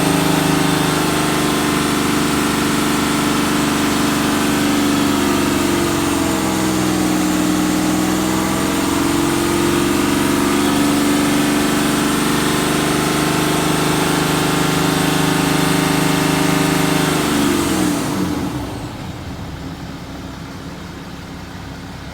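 BMW N57D30 3.0-litre straight-six diesel held at raised revs with a misfire-like tapping, which the owner suspects is a misfire at 325,000 km; the revs sag briefly and recover, then drop away about eighteen seconds in.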